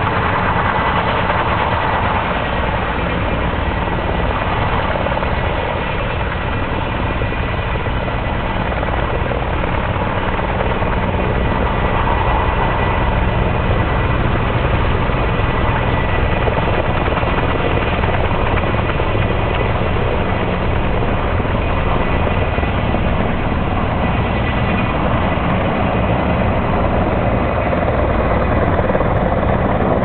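Firefighting helicopter hovering while it refills with slurry from a tank through its hose: steady, loud rotor and engine noise with a thin high tone running through it. Near the end the sound shifts as the helicopter climbs away.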